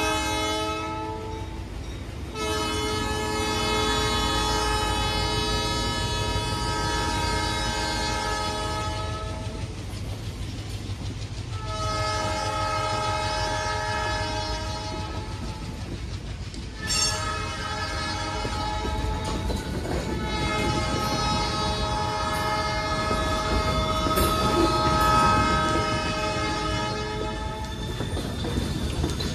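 ALCO diesel locomotive's air horn blowing the grade-crossing signal, long, long, short, long, with the end of an earlier blast at the start. The locomotives' diesel engines rumble and the wheels clack on the rails underneath.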